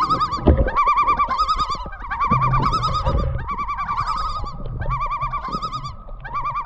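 Common loon giving its tremolo call: repeated phrases of rapid, quavering notes, one after another.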